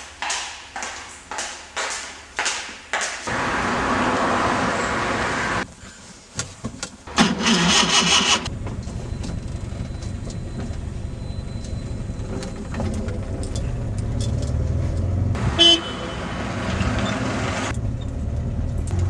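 A run of sharp clicks about two a second, then a few seconds of steady rushing noise. About seven seconds in, a car horn sounds for over a second, and after it a car engine runs steadily with a low drone.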